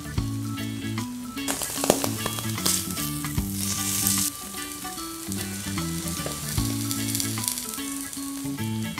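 Tuna melt filling of tuna, mayonnaise and red onion sizzling as it fries in a hot nonstick grill pan, with a spatula scraping the pan. The sizzle swells louder from about a second and a half in to about four seconds in.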